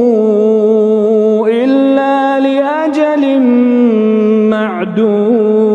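A man chanting Quran recitation in melodic tajweed style, drawing out long sustained notes with one unbroken voice. The pitch steps up about one and a half seconds in, settles back down near four seconds, and turns through short ornaments near the end.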